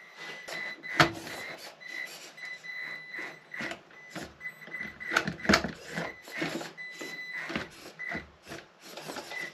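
Mini RC scale crawler driving over an indoor obstacle course: its small electric motor whines in short pulses as the throttle is worked, while the tyres and plastic chassis click and knock against the obstacles, with a few sharper knocks about a second in and around five seconds in.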